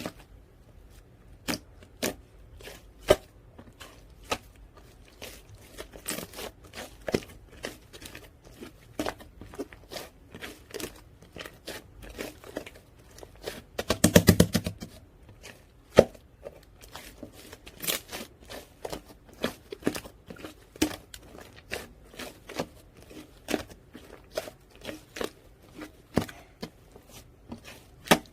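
White clay slime with beads mixed in, being squished and stretched by hand: irregular sticky pops, clicks and bead crunches, with a quick run of crackling about halfway through.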